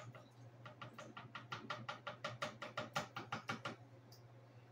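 Rapid light tapping of a small plastic vial against a plastic gold pan, about six or seven taps a second, knocking gold and black sand out into the pan; the tapping stops about four seconds in.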